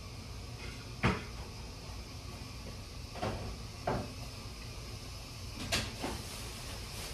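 Four short knocks, the first about a second in and the loudest, the others spread over the next five seconds, over a steady background hiss.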